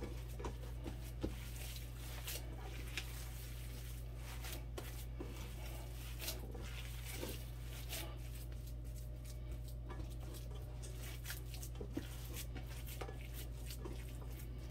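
Hands squeezing and kneading a raw ground-meat meatloaf mixture in a pan: soft, irregular squishing with light clicks, over a steady low hum.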